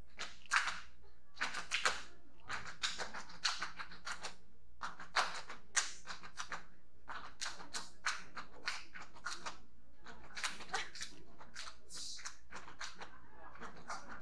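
Hand claps in quick, irregular clusters of sharp claps, as in a body-percussion routine.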